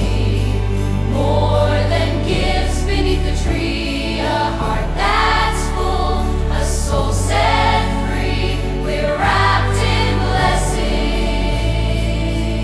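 Background music: a Christmas song with choir-like vocals over steady bass notes.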